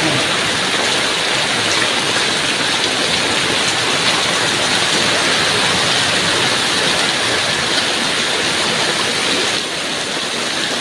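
Heavy tropical downpour falling onto a flooded paved lane, a steady loud hiss of rain and running water that eases slightly near the end.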